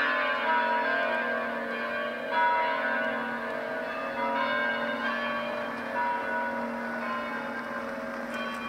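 Bells of a Romanian Orthodox monastery church ringing: several bells struck in turn, a fresh strike every second or two, their tones overlapping and ringing on.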